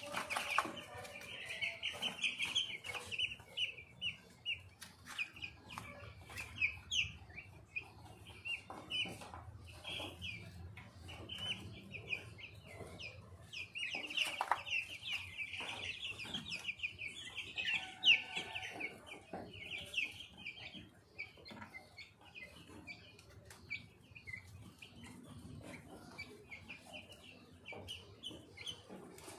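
Fourteen-day-old baby chicks peeping: a dense run of rapid high-pitched cheeps, thickest a couple of seconds in and again about halfway through, with scattered sharp knocks.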